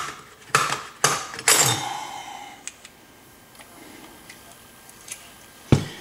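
Small metal parts of a disassembled lock cylinder being handled: a few short rattling scrapes in the first two seconds, then light ticks, and a sharp knock near the end.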